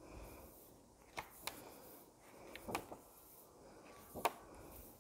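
Pages of a coloring book being turned and smoothed by hand: a few short, soft paper rustles, the loudest about four seconds in.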